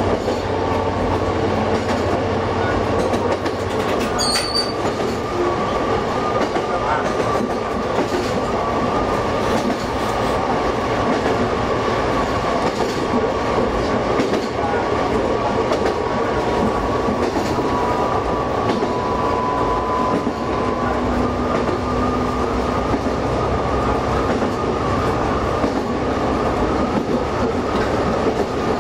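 A diesel railcar running along single track, heard from the cab: a steady rumble of engine and wheels on rail, with a thin high whine above it. The low engine note drops away about four seconds in.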